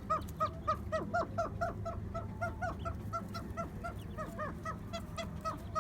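A flock of birds calling continuously, with many short, overlapping calls, several a second.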